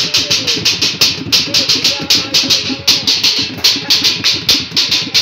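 Improvised percussion: a large metal cooking pot beaten with a stick, together with an orange plastic jerrycan and a plastic bucket drummed by hand, in a fast, steady beat of sharp strikes. Voices call out over the drumming.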